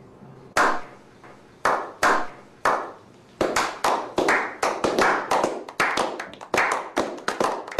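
Hand clapping: a slow clap, a few claps about a second apart that then quicken to about four claps a second.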